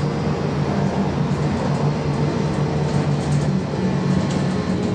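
VMZ-5298.01 trolleybus driving, heard from inside the passenger cabin: a steady electric-drive hum over even tyre and road rumble.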